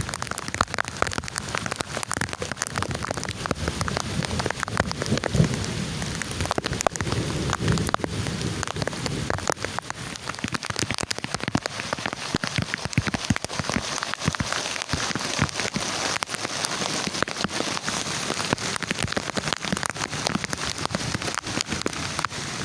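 Heavy rain: a dense, steady patter of drops hitting a surface.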